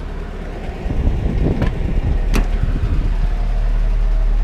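A 1986 Mazda B2000's carbureted 2.0-litre inline four idling steadily. The driver's door is handled and opened, with two sharp latch clicks around the middle. Afterwards the idle hum is steadier and a little louder.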